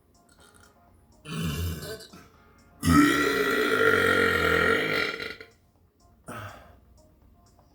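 A person burping three times: a short burp about a second in, then a long, loud, drawn-out burp of about two and a half seconds, then a brief one near the end.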